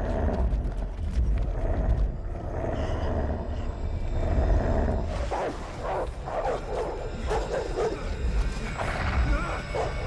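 Snarling and growling of an unseen hellhound over a deep low rumble, growing harsher in the second half.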